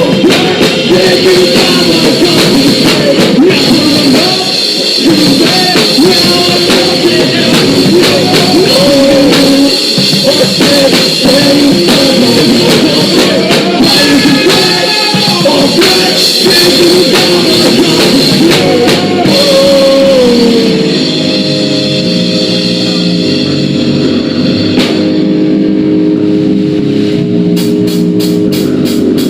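Live rock band playing loud, with guitar, drum kit and singing. From about two-thirds of the way through, the vocal line drops away and held guitar chords ring over the drums.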